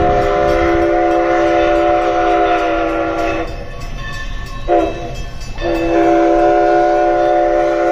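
Multi-note chime train whistle sounding a chord: a long blast, a brief toot about halfway through, then another long blast. This is the long-long-short-long pattern sounded for a grade crossing.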